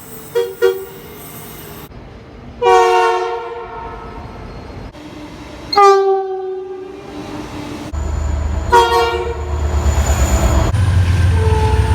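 Locomotive air horns sounding in a string of short blasts: two quick toots, then three separate short chords, then a longer held chord near the end. A train's low rumble runs under the last few seconds.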